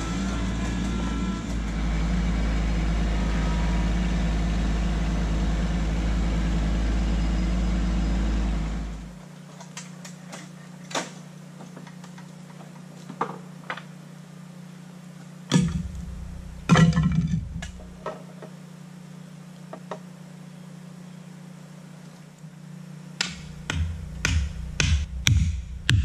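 Kubota LX2610 compact tractor's three-cylinder diesel engine running steadily as it drives, cutting off suddenly about nine seconds in. After that, scattered knocks and thuds, with a run of them near the end.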